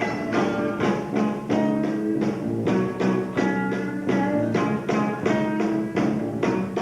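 Live band playing an instrumental piece: plucked or strummed guitar over hand percussion, with sharp attacks on a steady, quick beat.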